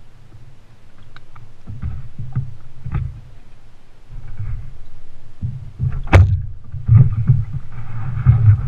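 Plastic kayak hull bumping and knocking against a wooden dock as a person climbs down into it, with low rumbling thuds throughout and a sharp knock about six seconds in.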